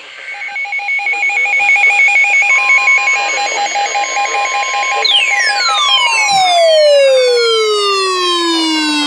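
NOAA Weather Radio's steady 1050 Hz warning alarm tone, starting a couple of seconds in, layered over a fast two-pitch beeping alert pattern. About halfway through, long falling siren-like sweeps join in.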